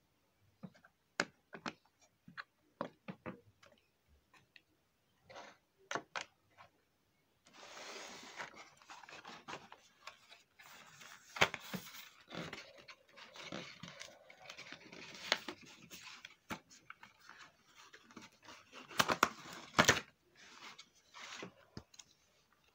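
Crinkling and rustling of a doll's cardboard-and-plastic box packaging as hands work the doll loose from its tray. Scattered light clicks and taps at first, then steady crinkling from about a third of the way in, with a few sharp snaps.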